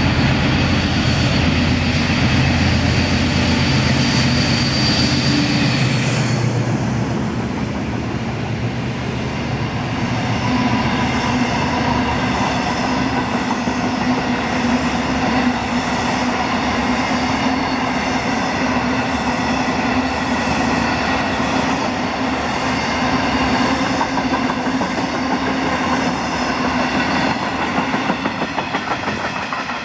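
Class 56 diesel locomotive's Ruston-Paxman V16 engine running loud as it comes through, falling in pitch as it passes about six seconds in. After it, a long rake of empty box wagons rolls by, a steady rumble with wheels clattering over rail joints, most rhythmic near the end.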